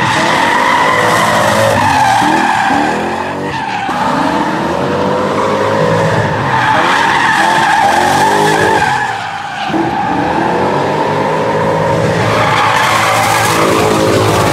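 Lexus LS400 sliding in smoky donuts: its rear tires squeal steadily while the 1UZ-FE V8 revs up and down. The sound briefly drops about nine and a half seconds in.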